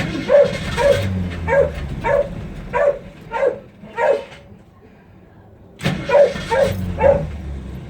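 Ford Mustang's engine cranking on the starter without catching: two tries, the first about four seconds long, the second about two, a sign of an engine that cranks but won't start. A dog barks repeatedly over the cranking, about once or twice a second.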